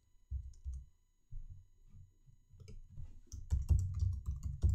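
Typing on a computer keyboard: a few scattered clicks at first, then quick keystrokes from about three seconds in.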